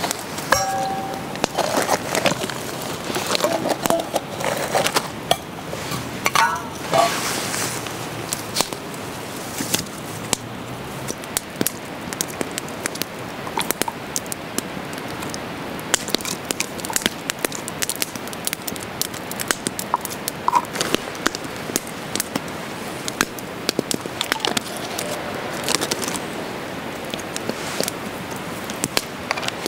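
Wood campfire crackling, with many small pops and clicks over a steady hiss. There is some light handling of a metal cup near the start.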